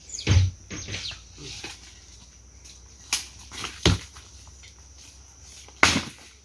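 Pieces of firewood being dropped and laid onto a bonfire pile: a series of about six separate wooden knocks, one of the loudest near the end.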